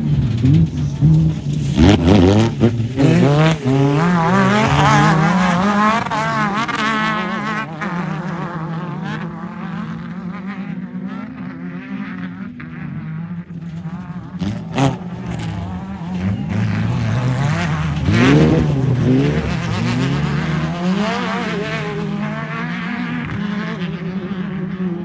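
Off-road race car engines revving hard, pitch climbing and dropping, with strong rises about two seconds in and again near eighteen seconds. A steady lower engine drone runs underneath, and there are a couple of sharp cracks around fifteen seconds.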